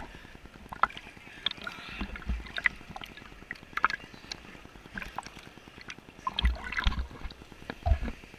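River water splashing and sloshing around a camera held at the water's surface, against the steady rush of a small rapid, with scattered splashes and several dull low thumps as waves slap the camera.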